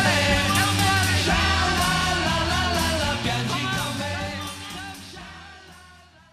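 Closing bars of an Italian pop-rock song, a band with drums, fading out steadily over the last two seconds.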